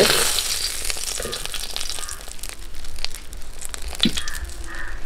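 Charred, dry banana-leaf parcels crackling and crinkling as they are lifted out of the pan, with irregular crackles and clicks.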